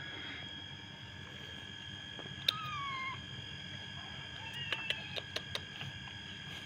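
A cat gives one short meow falling in pitch about two and a half seconds in, and a fainter one around five seconds, with quick small clicks of licking at a peeled hard-boiled egg held out by hand. A faint steady high whine runs underneath.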